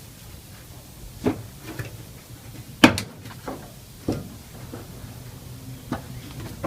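Knocks and clunks of a dryer's sheet-metal panels being handled and fitted into place, five separate hits.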